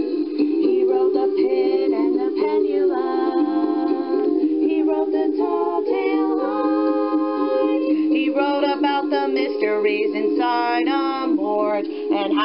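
A song: voices singing held, wavering notes over a steady instrumental accompaniment.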